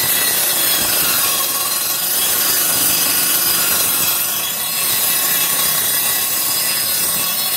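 Homemade table saw driven by a small washing-machine motor, its blade running and ripping steadily along a kitchen-cabinet panel as the board is pushed through by hand.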